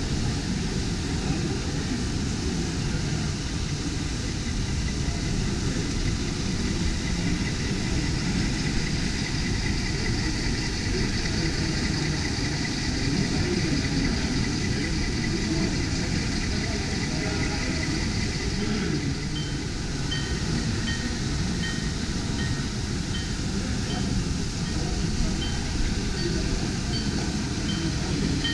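Model railway exhibition hall ambience: a steady mix of crowd chatter and running model trains, with a faint high whine through the middle. About two-thirds of the way in a regular electronic beeping starts, about one and a half beeps a second, and keeps on.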